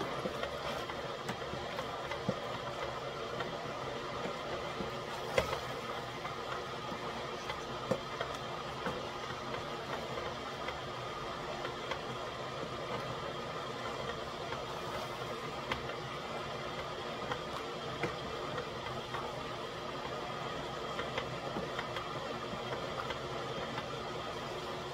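Electric kettle heating water, a steady even noise, with the food in the pot cooking. A few sharp knocks, the loudest about five and eight seconds in, as a wooden spoon stirs a stainless steel stockpot.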